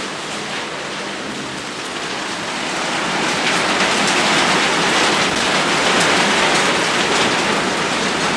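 Heavy rain falling, a dense steady hiss of drops that swells louder about three seconds in.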